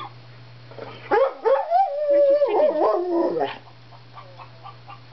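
English springer spaniel giving one long howling whine, about two and a half seconds, rising, holding and then falling in pitch: a sign of his frustration at hearing clucking chickens that he cannot find.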